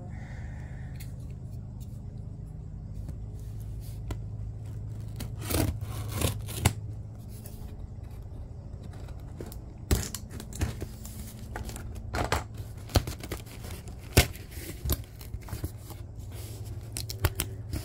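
A box being opened by hand: its tape and packaging are cut and torn, with irregular sharp snips, scrapes and rips starting about five seconds in. A low steady hum runs underneath.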